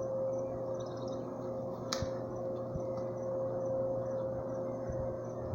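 A steady background hum with a constant tone, and one sharp click about two seconds in.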